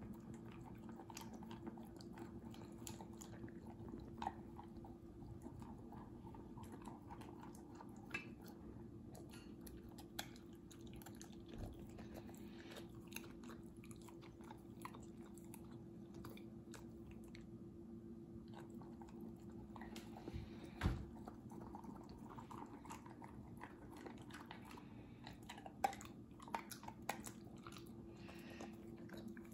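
Corgi crunching and chewing dry kibble from a stainless steel bowl, a steady run of small crunches, with a few louder knocks in the second half.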